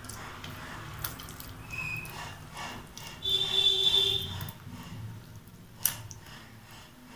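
Ripe papaya pulp being mashed by hand on a stainless steel plate: soft squishing with a few light taps on the metal. A high, steady electronic-sounding tone about a second long sounds in the middle, the loudest thing heard, with a shorter, fainter tone just before it.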